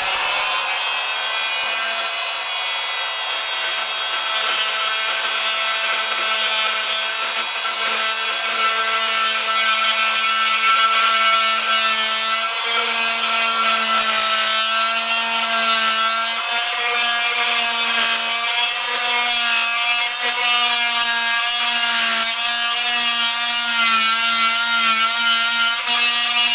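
Porter-Cable oscillating multi-tool with a wood-cutting blade running steadily while cutting into the water-swollen particle board edge of a laminate countertop, its whine wavering slightly in pitch as the blade works through the board.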